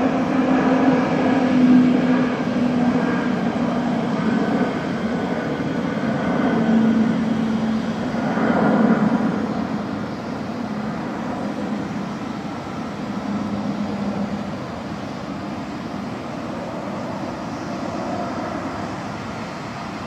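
Antonov An-124-100's four Progress D-18T turbofan engines heard from the ground as the freighter climbs away after takeoff: a steady jet roar that fades gradually, with a low engine tone sliding down in pitch as it recedes.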